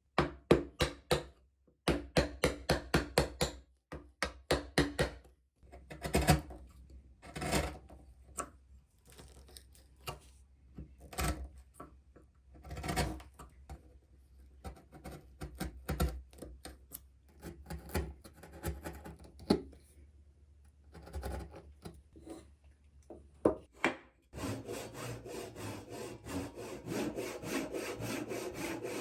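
Hand woodworking on a Japanese joint: a quick run of sharp knocks on wood in the first five seconds, then slower, scattered knocks and scraping strokes. About 24 seconds in, a handsaw starts cutting wood with a steady back-and-forth rasp.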